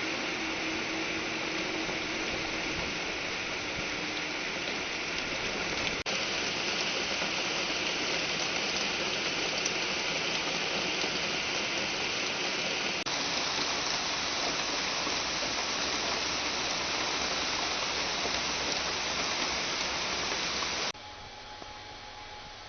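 Steady rushing of water, an even wash of noise broken by abrupt cuts about 6 and 13 seconds in. About 21 seconds in it drops suddenly to a quieter steady hiss with a faint hum.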